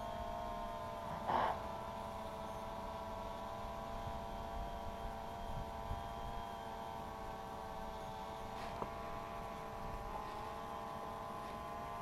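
DJI Phantom 2 Vision Plus quadcopter's motors and propellers running steadily in flight, a fairly quiet whine made of several steady tones. A brief louder sound cuts in about a second and a half in.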